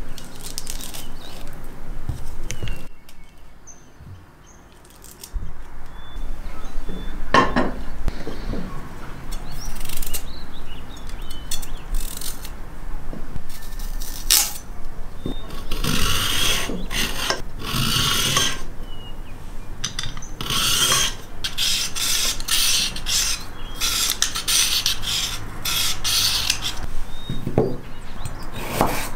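A kitchen knife scraping the skin off a raw carrot in a long run of repeated strokes. Before that, a peach is pulled apart by hand.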